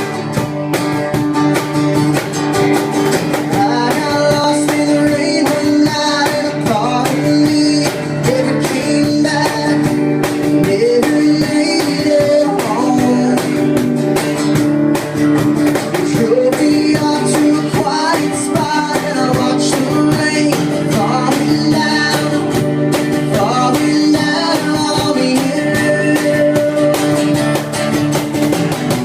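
Live acoustic music: a cajon beating out a steady rhythm under strummed guitar and a singing voice.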